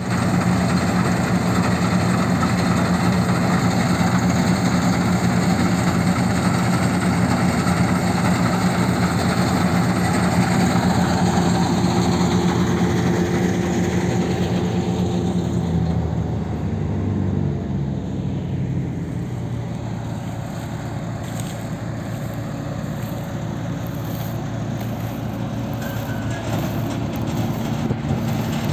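Bizon Sampo combine harvester with hydrostatic drive running at work: a steady diesel engine and machinery drone. About halfway through the steady note drops away and the sound becomes quieter.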